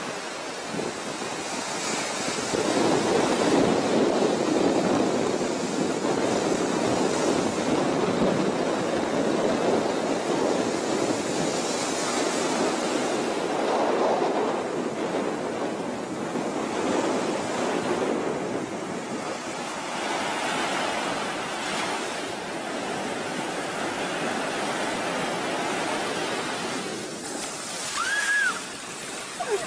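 Ocean surf breaking and washing up a sandy beach, swelling and fading in waves. Near the end a wave surges in close and loud, with a short high-pitched sound over it.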